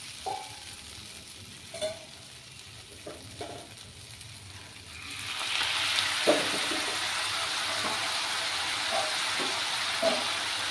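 Masala-coated taro cubes frying in mustard oil in a non-stick wok on low heat, a quiet sizzle with a few light clicks. About halfway through the sizzle swells into a louder, steady hiss that holds to the end.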